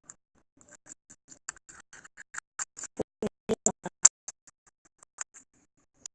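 Slime being squeezed and poked, giving a run of small, irregular clicking pops and crackles that grow louder and denser in the middle.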